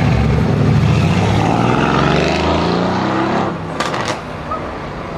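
A Mercedes-AMG car's engine and exhaust running loud, its note shifting in pitch and then falling away about three and a half seconds in, as a car passing by.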